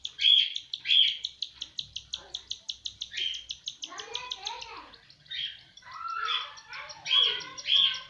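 Cockatiel chicks begging while an adult cockatiel feeds them: a fast, rhythmic chittering of about eight pulses a second, with louder raspy calls on top, and more varied squawks in the middle.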